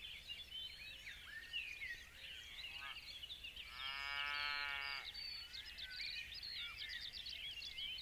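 Many small songbirds chirping and trilling together in a busy chorus of short high calls. About three seconds in there is a brief rising call, and soon after comes a longer, lower call lasting over a second.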